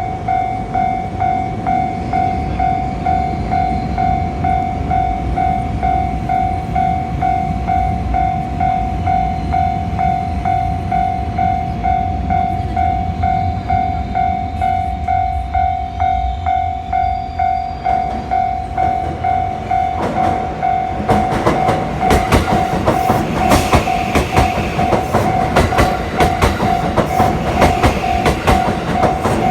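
Japanese level-crossing warning bell ringing in a steady, rapid, evenly pulsing ding. About twenty seconds in, a JR West 323 series electric train comes through, its wheels clacking over the rail joints, loud to the end.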